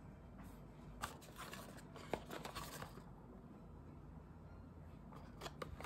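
A small paperboard box and a plastic cosmetic bottle being handled close up. Faint rustling and sharp clicks come from about one to three seconds in, then a few more sharp clicks near the end.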